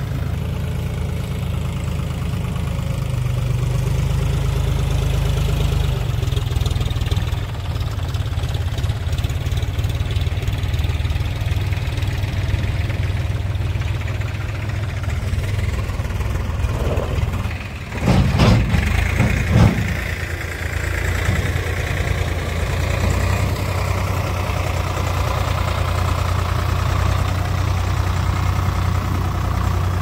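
Farm tractor diesel engines running steadily, at idle and pulling loaded trolleys. A few loud knocks come about eighteen to twenty seconds in.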